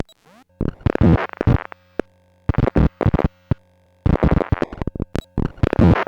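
Digital glitch sound effects: clusters of short stuttering noise bursts that start and cut off abruptly, with sharp clicks between them, over a steady electronic hum.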